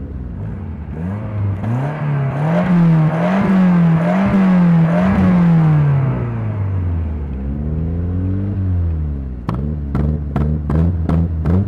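Small Fiat petrol engine being revved: the revs climb, hold with a few quick blips, and fall back to idle. Near the end they rise again, with a quick run of sharp pops from the exhaust.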